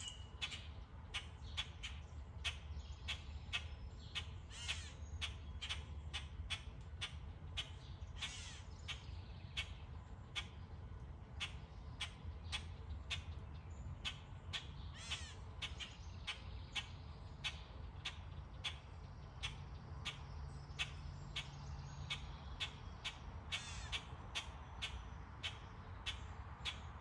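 Birds calling without a break: short, sharp calls repeated about twice a second, over a low steady rumble.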